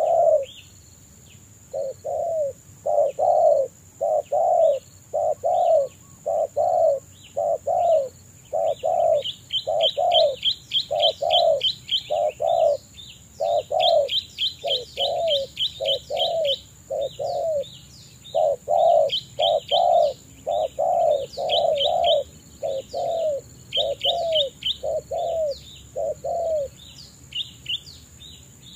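Spotted dove cooing repeatedly, short slightly falling coos about one a second. Small birds chirp and trill over it in quick runs.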